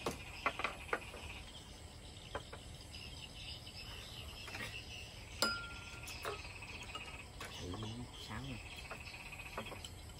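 Crickets chirping steadily while glasses and dishes clink and knock at a meal, with a few quick clinks near the start and one sharper clink that rings briefly about five seconds in.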